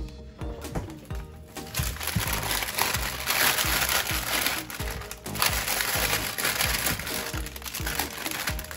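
Background music, with a plastic produce bag crinkling and rustling from about two seconds in as sweet bell peppers are pulled out of it.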